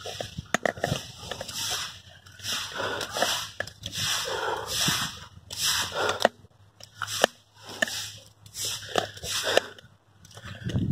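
A person breathing hard close to the microphone, with noisy breaths about once a second. Jacket rustling and short sharp clicks run between the breaths.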